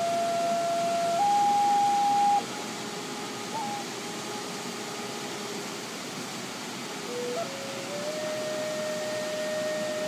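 Native American flute tuned to G# playing long held notes. It steps up to a louder, higher note, then drops to a long soft low note and climbs back up slowly in small steps. The steady rush of a waterfall runs underneath.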